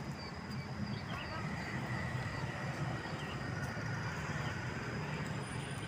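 Street ambience: a steady low rumble of road traffic, with a thin steady high tone and a few faint chirps over it.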